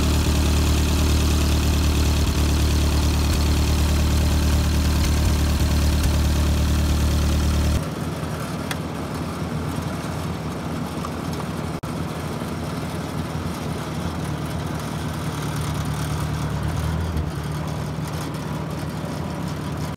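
Tractor engine running steadily. About eight seconds in the sound cuts abruptly to a quieter engine sound with a different pitch, as if from another clip.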